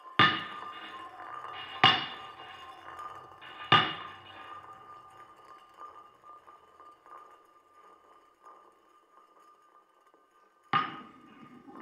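Experimental performance soundtrack: sharp struck hits, each ringing out. Three come about two seconds apart, then a fourth near the end, over a faint steady ringing tone.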